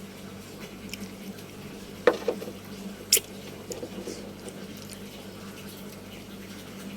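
Tableware clatter: a couple of knocks about two seconds in, then a single sharp clink a second later, like a utensil against a bowl, over a steady low hum.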